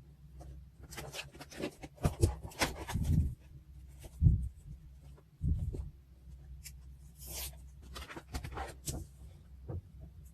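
Paper and stickers being handled on a desk: irregular rustling and crinkling with light taps, and a few soft thumps about two, three, four and five and a half seconds in.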